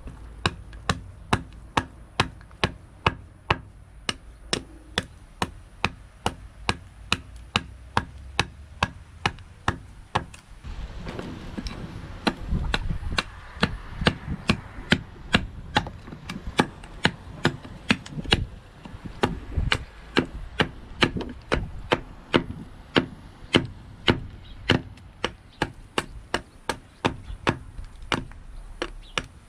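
A large knife chopping down the sides of a birch spoon blank held upright. The blade strikes the wood in a steady run of sharp knocks, about two a second.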